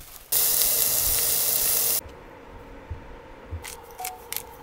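Spray can giving one steady, hissing burst of about a second and a half that cuts off sharply, followed by a few faint clicks.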